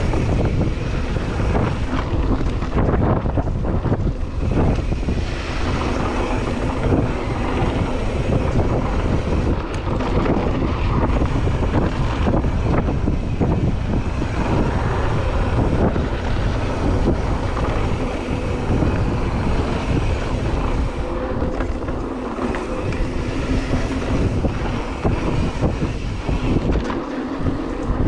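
Mountain bike (a 2016 Ibis Mojo HD3) riding fast down dirt singletrack: tyres rolling on the trail and the bike rattling and knocking over bumps, under steady wind rushing over the action camera's microphone.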